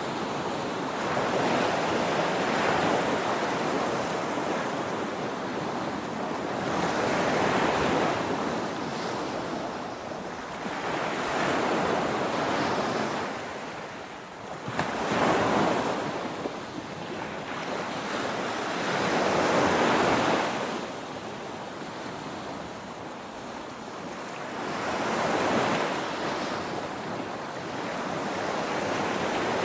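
Small waves breaking and washing up a sandy beach, each surge swelling and ebbing about every four to five seconds, the sharpest one about halfway through.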